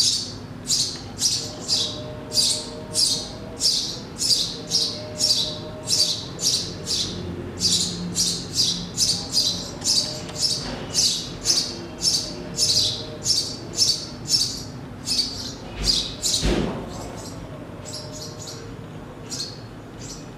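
Small songbird chirping in a fast, regular series, about two or three high chirps a second, thinning out to a few scattered chirps near the end. A single low thud comes about sixteen seconds in.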